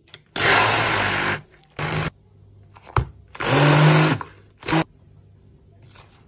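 Hand-held immersion blender grinding red lentils into a coarse paste in a plastic bowl, run in pulses: two runs of about a second each, each followed by a short blip, with a sharp knock in between.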